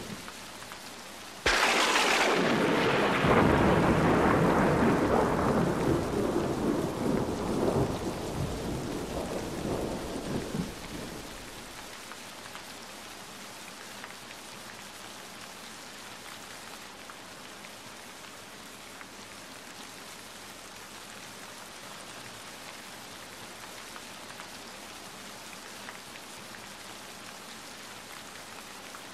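Steady rain falling, with a sudden clap of thunder about a second and a half in that rumbles on and fades away over roughly ten seconds, leaving the rain alone.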